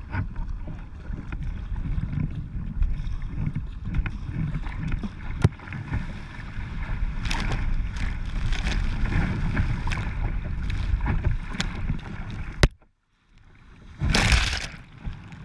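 Choppy sea waves slapping and washing against a sea kayak's bow, with a steady low rumble of wind and water on the bow-mounted camera and a few sharp knocks. Near the end the sound drops away for about a second, then a wave breaks over the bow in a loud rush of spray.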